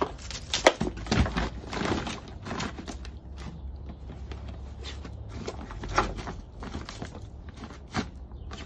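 Labradoodle puppy pawing and scuffling on a concrete porch: claws scraping and clicking on the concrete and dry leaves rustling. A quick run of scrapes and taps comes in the first few seconds, then single sharper knocks about six and eight seconds in.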